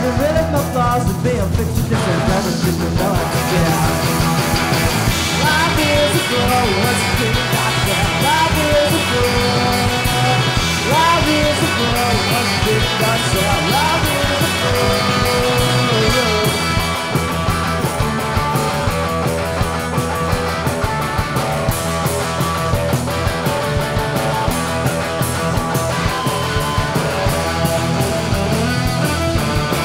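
Rock band playing electric guitars, with a man singing the lead vocal.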